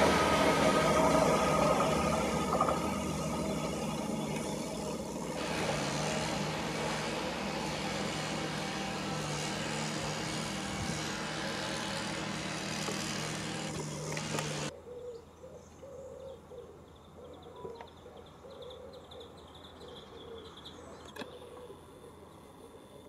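A train passing and rumbling away, its noise fading steadily. About two-thirds of the way through it cuts off suddenly to quiet open-air ambience with faint, scattered chirps.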